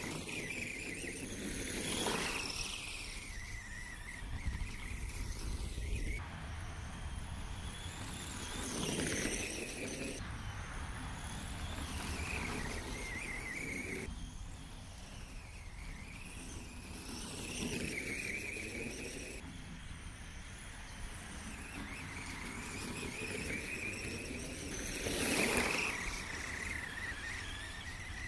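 Arrma Senton 4x4 radio-controlled truck's electric motor and drivetrain whining as it drives through snow, the high whine wavering with the throttle. Four times it passes close by, louder and rising then falling in pitch over the hiss of its tyres throwing snow, the loudest pass near the end.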